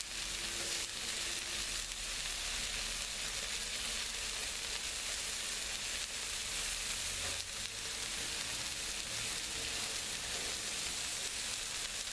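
Burgers and melting butter sizzling on a Blackstone flat-top griddle: a steady frying hiss.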